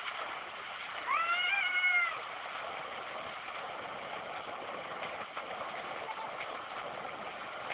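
Water gushing from an outlet pipe and splashing into a shallow pool, a steady rushing. About a second in, a single high drawn-out cry lasting about a second rises above the water.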